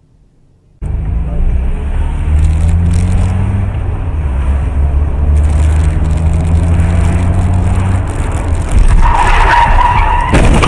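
A vehicle's engine runs under heavy road and wind noise, cutting in abruptly about a second in. Near the end comes a brief skidding tyre squeal as an oncoming car brakes, then a sharp knock.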